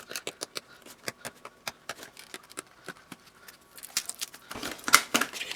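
A mouse's retail box being opened by hand: a run of small sharp clicks and ticks, then denser rustling and handling of the packaging, with a louder click about five seconds in.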